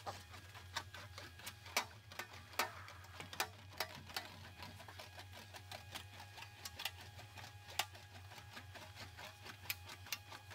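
Sheet-metal fender panel being rolled back and forth through an English wheel at light pressure to smooth it out, with scattered faint clicks and ticks from the metal over a low steady hum.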